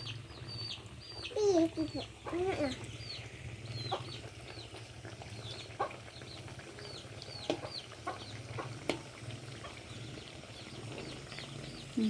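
Chickens calling: a hen clucks between about one and three seconds in, and short high peeps repeat throughout. A few sharp clicks and a steady low hum sit underneath.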